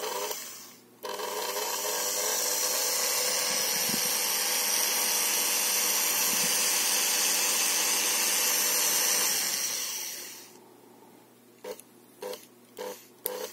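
Brushed commutator motor of an opened Alesya-300 kitchen mixer starting suddenly about a second in and running steadily at high speed, powered because the lid safety limit switch is held pressed. It spins down and stops near the end.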